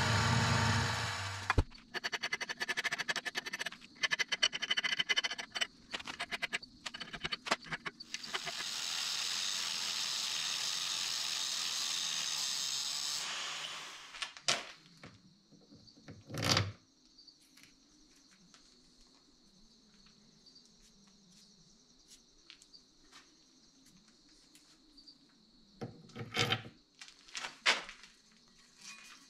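X2D benchtop mini mill running, its end mill cutting steel with a steady grinding noise that stops about two seconds in, comes back in short choppy bursts, then runs steady again for about five seconds. After that there is only a faint hum, with a few sharp knocks and clunks later on.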